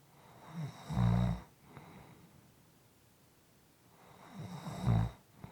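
A person snoring softly: two snores about four seconds apart, each a short, low, rattling breath.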